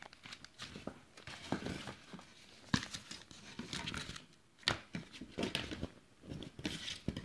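Rustling and crinkling handling noise with scattered light clicks and knocks, the sharpest about three seconds in and just under five seconds in.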